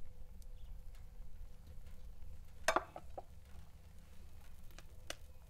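Faint sizzling and crackling of food cooking on a wood stove over a low rumble, with one sharp knock about two and a half seconds in, a lighter one just after, and a few light ticks near the end.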